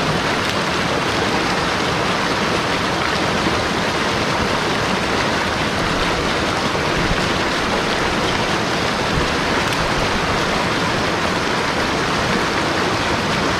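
Mountain stream rushing, a steady even wash of fast water.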